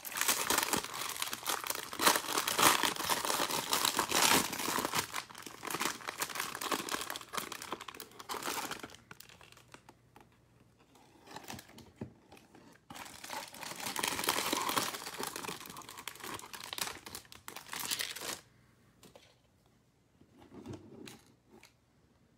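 Foil-and-plastic wrappers of Topps baseball card packs being torn open and crinkled by hand, in two long spells with a quieter gap between them. A few faint rustles follow near the end.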